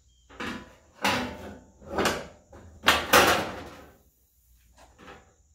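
A sheet-steel replacement tail pan being set onto the rear body of a 1966 Ford Mustang: a series of metal clunks and scrapes as it is fitted against the body, the loudest about three seconds in.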